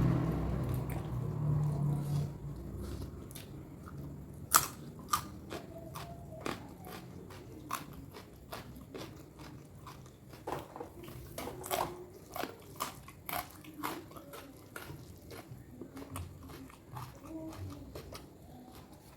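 Close-up chewing and crunching of food in the mouth, with many sharp, irregular wet clicks. A low rumble fades out over the first few seconds.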